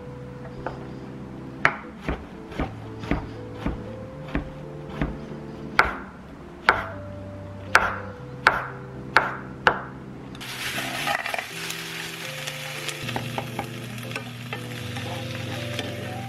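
A knife chopping on a cutting board in sharp, uneven knocks, roughly one a second, for the first ten seconds. Then food starts sizzling steadily in a hot pan. Background music plays throughout.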